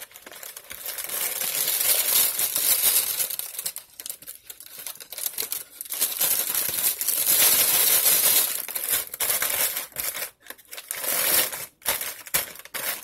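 Brown paper cooking bag of a frozen crawfish boil crinkling as it is handled and shaken to spread the ingredients inside. It goes in two long bouts of loud crinkling, then short scattered crackles near the end as the bag is laid back down.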